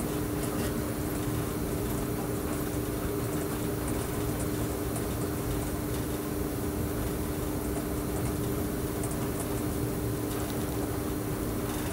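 Electric train running along the line, heard from inside the driver's cab: a steady rushing noise over a low rumble, with a steady low electrical hum throughout.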